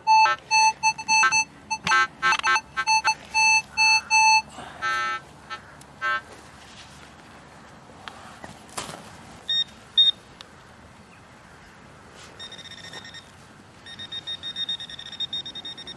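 Minelab CTX 3030 metal detector giving a quick run of short target beeps as the coil sweeps over a shallow target, then a few scattered tones. A spade cuts into the turf about nine seconds in, and a higher-pitched beeping comes back near the end.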